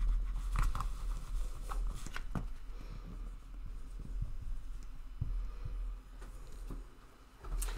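Marker pen writing on a glass lightboard: faint short strokes and ticks as a number and a box around it are drawn, over a low steady hum.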